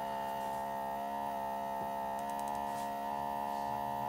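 Nebulizing diffuser's replacement 12 V micro air pump running with a steady electric hum, pushing plenty of air through the nebulizer.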